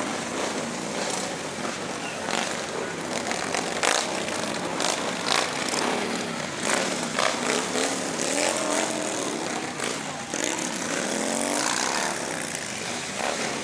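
Cruiser motorcycles with V-twin engines running at a slow parade pace, over crowd noise from a stadium stand. Many sharp claps and a few shouts stand out, the shouts mostly in the second half.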